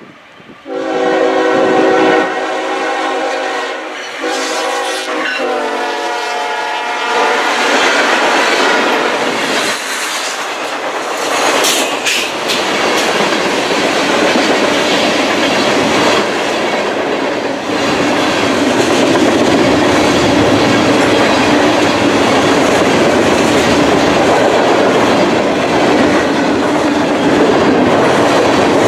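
Freight train passing close by: the locomotive's multi-chime air horn blows for about six seconds, its pitch dropping as the engine goes by. Then the steady rumble and clickety-clack of covered hopper cars rolling over the rails, with a few sharp clanks.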